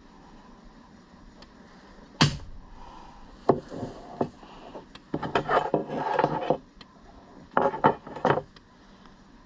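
One sharp snap about two seconds in as the spring-loaded launcher fires into a block of ballistic gelatin. Clicks, knocks and scraping of handling on a wooden table follow.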